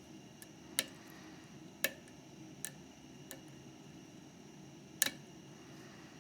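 Lock picking a Mauer MLS euro cylinder: a steel pick and tension tool working the pin stacks give about five sharp metallic clicks, irregularly spaced, the loudest near the end, over a faint steady hiss.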